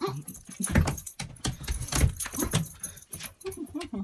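Soft-coated wheaten terrier moving about on a wooden floor over a pile of socks: irregular scuffs and taps of paws and claws with a metallic jingling, and a few short low whines near the end.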